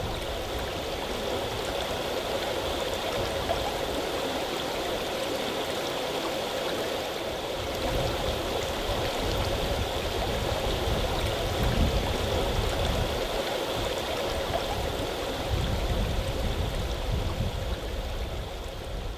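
Steady rush of a shallow river flowing over stones, with an intermittent low rumble underneath.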